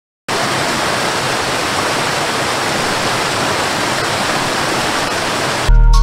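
Waterfall cascading over rocks: a steady rush of water that cuts in abruptly just after the start. Music with a heavy bass comes in suddenly near the end.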